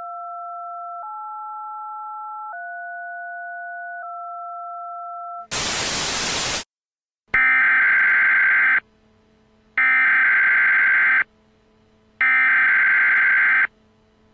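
Four long telephone touch-tone (DTMF) tones in a row, about a second and a half each, spelling the digits 2, 8, 3, 2. Then about a second of loud static, followed by three bursts of EAS SAME header data tones, each about a second and a half long with a second's gap between them, the warbling digital header that opens an emergency alert.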